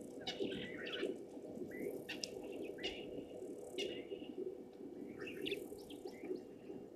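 Wild birds chirping: short rising calls about once a second, over a steady low background hum.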